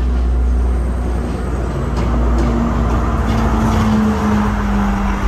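Diesel passenger train pulling into a station: a loud low engine rumble with a steady droning tone that dips slightly in pitch about four seconds in as the carriages pass close by.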